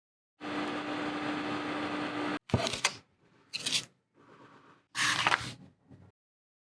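A small motor or power tool runs with a steady hum for about two seconds, then cuts off. A few short sharp knocks and scraping handling noises follow, the loudest near the end.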